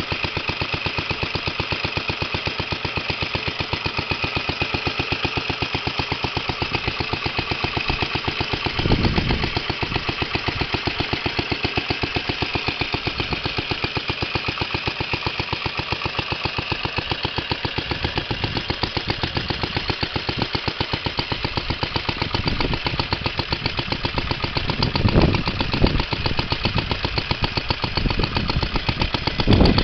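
1930 Moto-Mower Junior's Briggs & Stratton FHI single-cylinder engine idling steadily with an even exhaust beat, running nicely. The sound swells briefly about a third of the way in and twice near the end.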